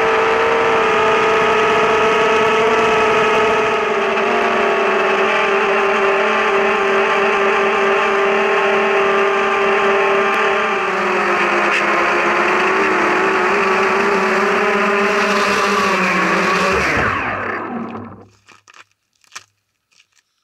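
Brushless motors and propellers of a ZMR250 racing quadcopter whining steadily in flight, heard from the camera on board; about 17 seconds in the pitch falls and the motors spin down and stop, followed by a few faint knocks.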